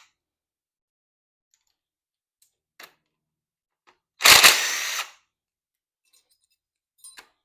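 Steel pushrods from a Ford 460 V8 clattering as they are handled and dropped on a pile, one loud clatter of about a second a little past the middle, with a faint click before it and a few light ringing clinks near the end.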